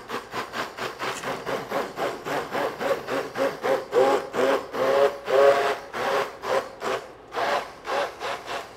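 Hand-held immersion blender pureeing a pot of cooked lentil peas into soup, its motor whirring in rapid, regular surges, about four a second, as the blade churns through the thick peas.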